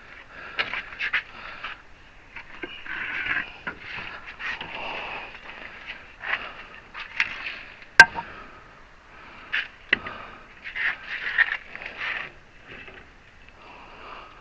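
Scraping and knocking as a hydraulic ram's piston is worked at to push it into its cylinder barrel, with one sharp knock about eight seconds in.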